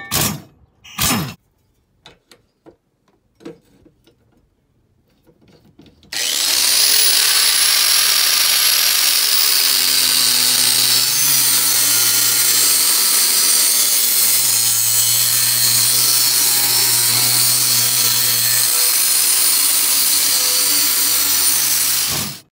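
An impact wrench gives a few short bursts at the start. Then, about six seconds in, an angle grinder starts and runs steadily, grinding the edge of a steel lawn mower blade with a high whine over the grinding noise.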